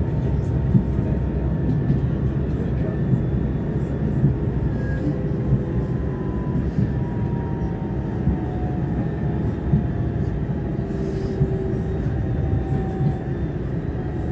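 Electric city tram running along its rails, heard from inside the car: a steady low rumble with a faint whine that slowly falls in pitch.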